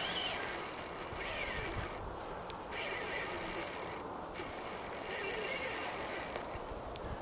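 Fishing reel whirring with a high, even buzz in three stretches separated by short pauses, as line runs through it while a hooked pike is fought on a bent rod.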